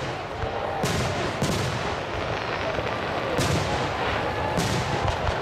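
Aerial fireworks shells bursting overhead, about four loud bangs spread unevenly through the display.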